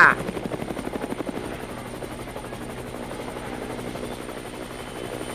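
Helicopter rotor sound effect: a steady, rapid beat of rotor blades with engine noise.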